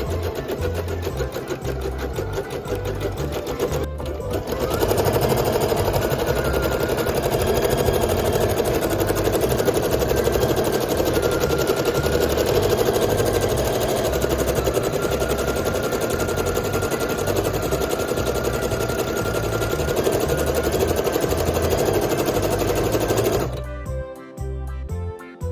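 Embroidery machine stitching rapidly and steadily, dipping briefly about four seconds in; it stops shortly before the end, leaving music.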